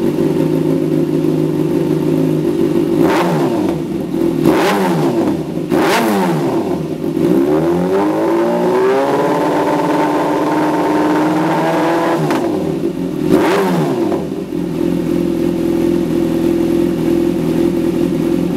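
2014 Kawasaki ZX-6R's inline-four engine, breathing through a Lextek MP4 megaphone silencer, idling and then revved: three sharp blips in quick succession, a longer climb held at higher revs for a few seconds, one more blip, and back to a steady idle.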